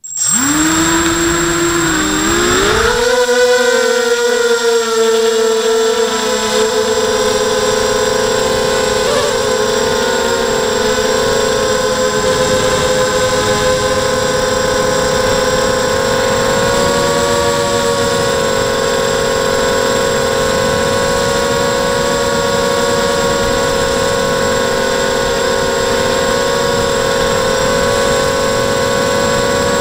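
ZMR250 mini quadcopter's brushless motors and propellers spinning up with a rising whine over the first three seconds, then holding a steady whine with small shifts in pitch in flight, heard through the quad's onboard camera.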